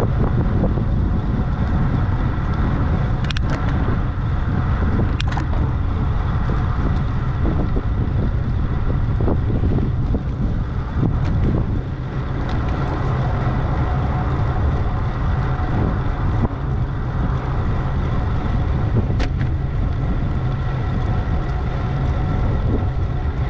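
Steady wind and road noise from a road bike in motion, heaviest in the low rumble, with a few sharp clicks.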